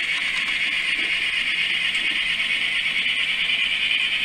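N scale model train running along the track: a steady whirring hiss of the small locomotive motor and the wheels rolling on the rails.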